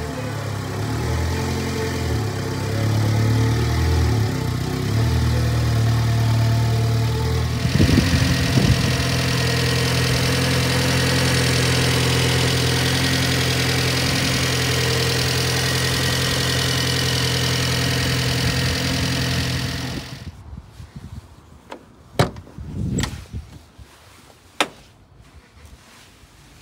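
Subaru Sambar's Clover 4 four-cylinder engine idling steadily; from about eight seconds in it sounds brighter and hissier. About twenty seconds in the engine sound stops abruptly, and a few sharp clicks and knocks follow.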